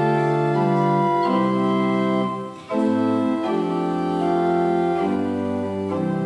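Organ playing slow, sustained chords, with a brief break between phrases about two and a half seconds in.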